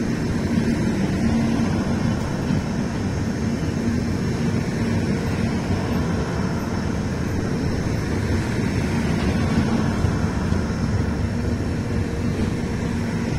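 Rajdhani Express passenger coaches rolling past at speed: a steady low rumble of wheels on rail with a faint hum.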